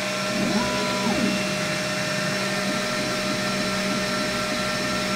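xTool S1 40 W diode laser engraver running a job: its exhaust fan and air assist make a steady whir with a high-pitched whine, while the laser head's motors sound in short, repeating sweeps as it engraves.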